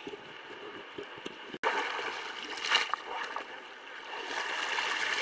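Water splashing and sloshing around a sea kayak as it is capsized and rolled back upright, with the paddle sweeping through the water. The sound cuts out briefly about a second and a half in, then comes back louder with sharp splashes.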